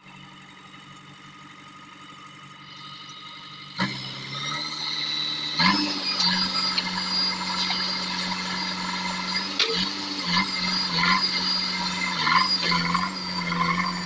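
JCB 3DX backhoe loader's diesel engine running with a loaded front bucket. It revs up about four seconds in and again near six seconds, then holds steady with a high whine over the engine note.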